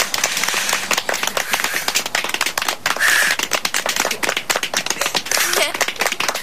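A small group of people clapping and applauding, many quick, uneven claps overlapping.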